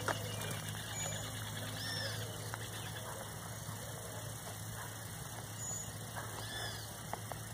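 Faint outdoor ambience: a steady low hum, with a few faint high chirps about two seconds in and again near the end.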